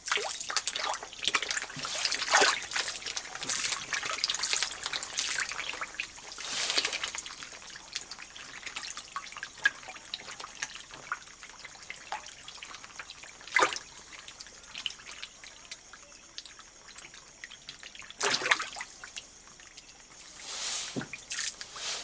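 Fish food pellets hitting the water and walking catfish (Clarias batrachus) splashing at the surface as they feed. The splashing is busiest over the first several seconds, then comes as a few single splashes.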